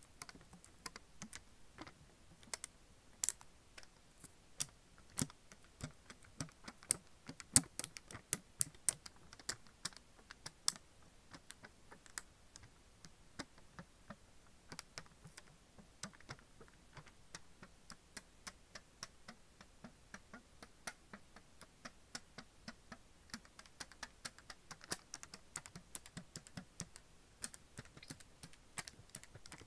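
Metallic seal strip from a Sakuma Drops candy tin crinkling as fingers bend and rub it: an irregular run of sharp little crackles, loudest in the first third and smaller after that.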